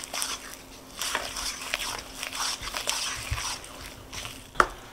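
Wooden spoon stirring thick peanut butter quick-bread batter in a mixing bowl: repeated, uneven scraping strokes, with one sharp knock of the spoon against the bowl near the end.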